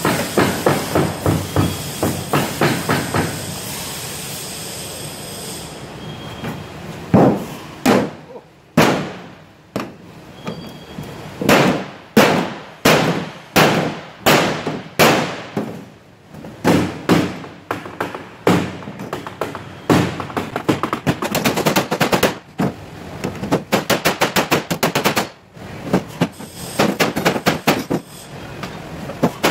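Hammer blows on the dented aluminum gunwale of a Sportspal canoe, knocking the crushed metal back into shape. Sharp metallic strikes come in a fast run at the start, then as single blows and short runs, and in another quick run near the end.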